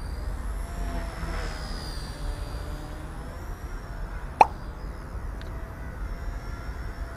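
XK K110S mini RC helicopter flying at a distance: its brushless motor and rotor whine is faint and wavers up and down in pitch as it manoeuvres, over a low wind rumble on the microphone. A single sharp click sounds about four and a half seconds in.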